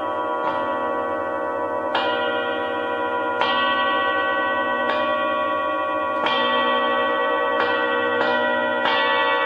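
Hand-forged Tibetan singing bowls struck with mallets, alternating hands, about every second and a half and a little faster near the end. Each strike sets off a sustained ringing tone that overlaps the ones still sounding.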